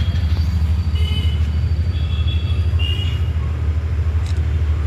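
5 HP Atlas piston air compressor with a 300-litre tank running, giving a steady low hum with a fast, even pulsing.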